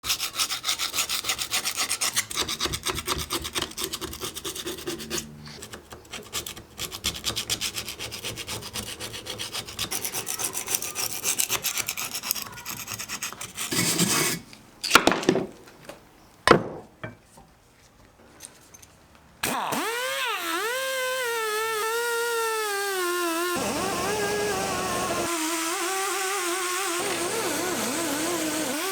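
Rapid rasping scrubbing strokes on metal for about half the time, then a few sharp knocks. After that a die grinder with a wire wheel runs steadily to the end, its whine wavering in pitch as the wheel is loaded against the metal.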